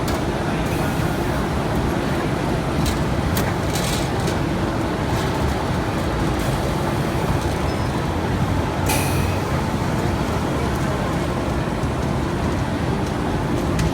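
Four-plate turntable high-frequency fusing machine running with a steady hum and noise, broken several times by short hisses, the loudest about nine seconds in.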